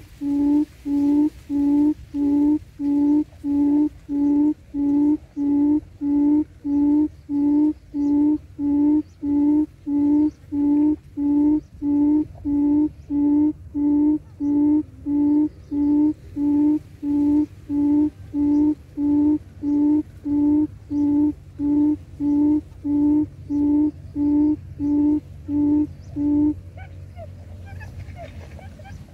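Wild quail call played on a loop from an electronic caller at a quail trap: one low hooting note repeated at a machine-even pace, about one and a half times a second, stopping a few seconds before the end.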